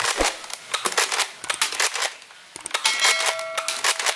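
Nerf Surgefire pump-action dart blaster being fired at tin cans and knock-down targets: a fast run of clicks and clatter, with a short metallic ring about three seconds in as a can is hit.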